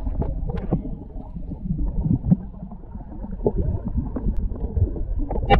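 Muffled sloshing and gurgling of water with irregular low knocks and bumps, heard through an underwater camera beside the boat while a musky is brought in and netted.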